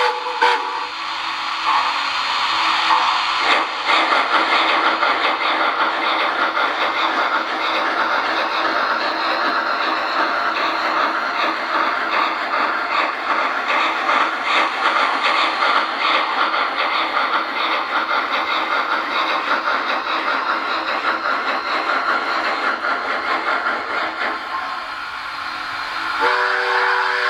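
Sound system of an HO-scale MTH Triplex model steam locomotive playing fast, continuous steam chuffing and hiss through its small speaker. A multi-tone steam whistle starts to blow near the end.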